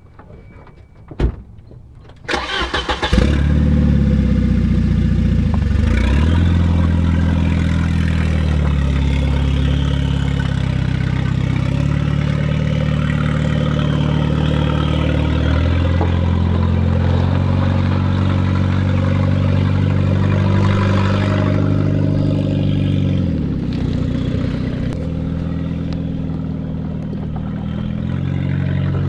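A single knock about a second in, then a Volvo 940's turbocharged four-cylinder engine is cranked by the starter and catches after about a second. It then runs steadily, its revs rising and falling several times.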